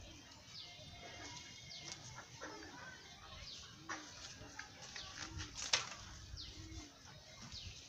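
Birds calling: a small bird's short falling whistles repeated every second or so, and the low cooing of a dove. A single sharp click comes a little past the middle.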